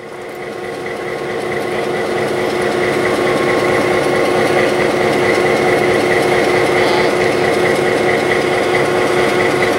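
EMD GP9 diesel locomotive's 16-cylinder 567 two-stroke engine idling steadily while the unit stands still, fading in over the first two seconds.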